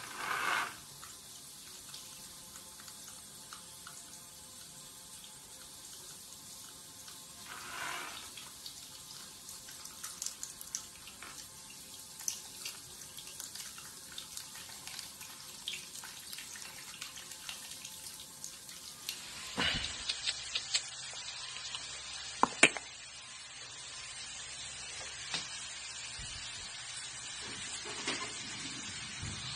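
A handheld shower head lying on the floor sprays water in a steady hiss for the first two-thirds. It cuts off abruptly and gives way to a quieter background with a few sharp taps, the loudest about three-quarters of the way through.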